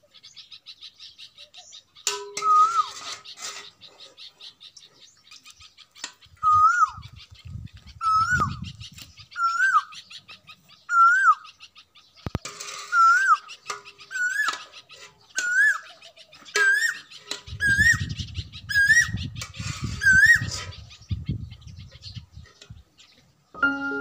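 A bird calling over and over, a short whistle that rises then falls, repeated about once every second or so, with higher chirps alongside. A low rumble comes in twice, in the first half and near the end.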